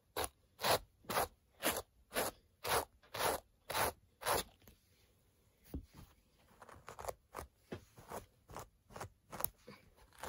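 A cat brush dragged through a doll's badly tangled hair in repeated scratchy strokes, about two a second. After a pause of about two seconds the strokes come back fainter and quicker.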